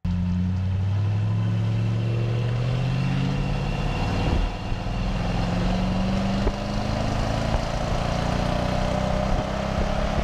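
Pickup truck engine and exhaust heard from a camera under the rear bumper while driving, the engine pitch climbing as it accelerates, dipping about four seconds in, then climbing again, over steady road and wind noise.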